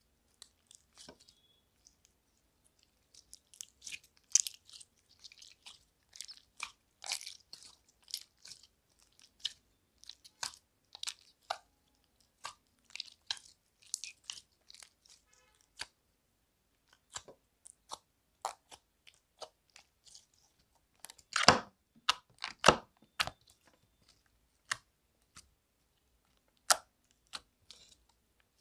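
Glossy slime squeezed and kneaded by hand, making irregular short sticky clicks and pops, with a louder run of them about two-thirds of the way through.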